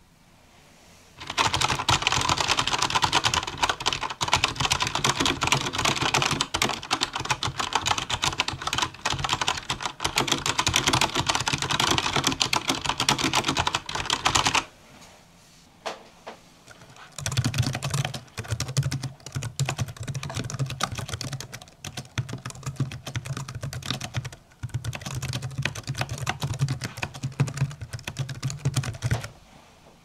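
Fast typing on a Logitech G710+ mechanical keyboard with Cherry MX Brown switches, a dense run of key clicks miked close up. After a short pause it is followed by typing on a Microsoft Sculpt membrane keyboard, in runs with short breaks and a duller, thumpier keystroke sound.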